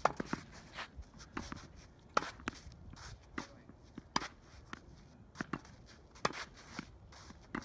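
Tennis balls struck by rackets in a volley drill: a sharp pock about every two seconds as the ball comes off the strings, with lighter knocks of balls and feet in between.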